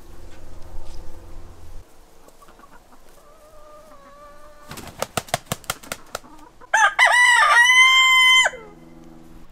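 Chickens clucking, then a rooster crowing once, loudly, about two-thirds of the way in: a few short notes running into one long held note.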